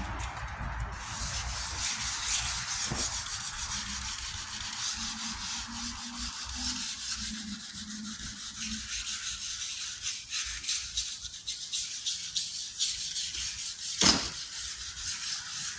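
Sandpaper on a sanding block rubbed back and forth over a painted steel tailgate panel in rapid short strokes: wet sanding the red base coat. One sharp knock about fourteen seconds in.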